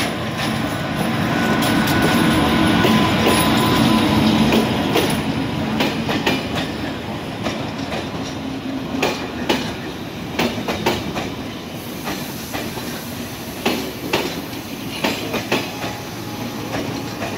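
A MÁV V43 ('Szili') electric locomotive passes close by with a steady hum, loudest a few seconds in. The coaches behind it then roll past, wheels clicking over rail joints several times a second.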